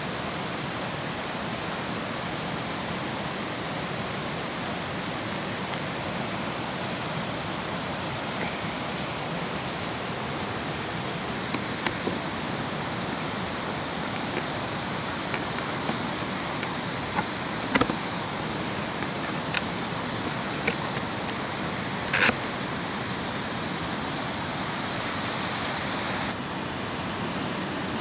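Steady rushing outdoor noise with a few scattered sharp clicks and snaps, the loudest about two-thirds of the way through.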